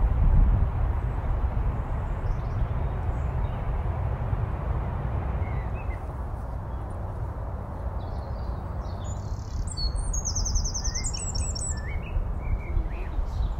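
A songbird sings a short, high phrase of quick repeated notes about nine seconds in, over a low, uneven rumble.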